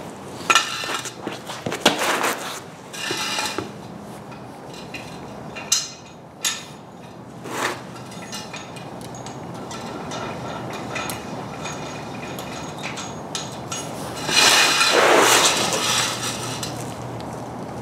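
Steel jack stands and a floor jack being handled under a car: a series of sharp metal clanks with brief ringing, then a longer, louder clatter about fifteen seconds in, as the stands are set in place to hold the front end.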